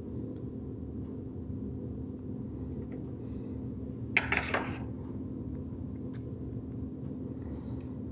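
Steady low hum of room noise, with a brief metallic scrape-and-clink about four seconds in as a small metal tool is worked against a smartphone's back, plus a few faint taps from handling the phone.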